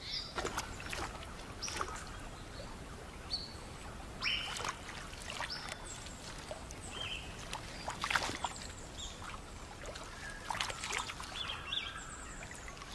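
Birds chirping and calling in short, scattered notes, some sliding down in pitch, over a steady background of outdoor noise. A few brief louder sounds stand out among them.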